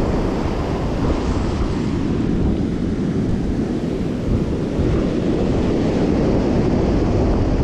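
Ocean surf breaking and washing up the beach, with wind buffeting the microphone: a steady rushing noise heaviest in the lows.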